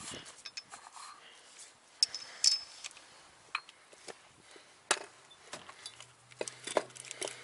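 Scattered light clicks and sharper metallic knocks as a coilover strut is handled and its threaded spring collar turned by hand to set ride height.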